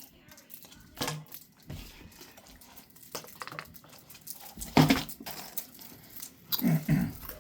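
Cardboard game pieces being pushed out of a perforated card sheet and dropped into a bowl: scattered light clicks, taps and crinkles of card, with the loudest knocks about a second in and about five seconds in.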